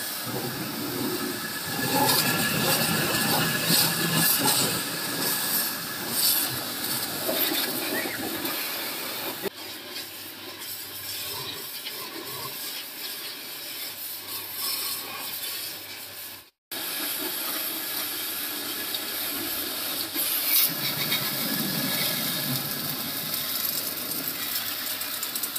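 Water from a garden hose spraying hard onto a tractor's engine, radiator and tyres: a steady hiss and splash, broken by a brief gap about two-thirds of the way through.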